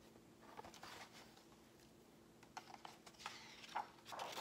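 Pages of a large hardcover picture book being handled and turned: soft paper rustles and flaps, a few brief ones about half a second in and a louder cluster in the second half.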